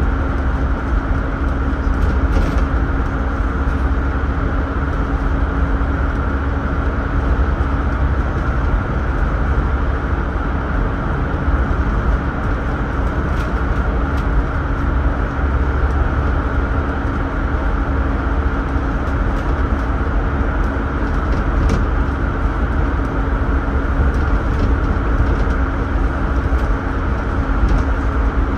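Inside a city bus under way: steady engine drone and road rumble, with a constant hum and a few faint rattles.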